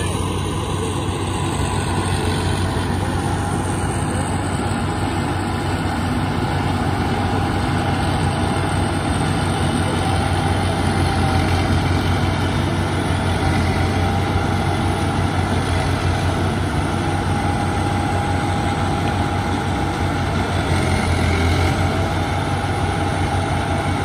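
New Holland FX48 self-propelled forage harvester running under load while it chops corn stalks for green fodder: a steady, heavy engine drone with a thin steady whine over it.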